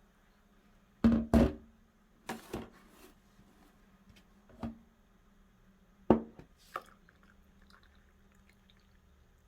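Several short knocks and thuds of objects being handled and set down, in uneven groups (two loud ones about a second in, more near 2.5 s, 4.5 s and 6 s), over a faint steady hum.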